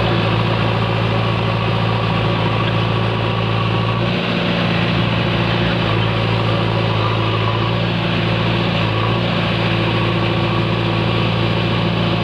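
JCB backhoe loader's diesel engine running steadily at low revs.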